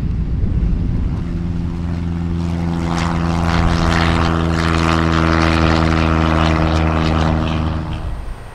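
High-wing single-engine light aircraft taking off, its piston engine and propeller giving a steady, even-pitched drone with a rasp over it. It comes in about a second in over wind rumble on the microphone and cuts off suddenly near the end.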